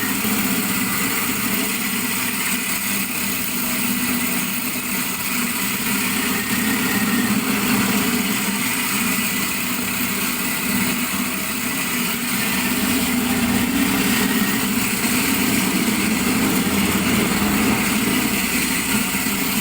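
VFD-driven grinding machine running steadily at maximum speed, a continuous mechanical hum with a hiss over it.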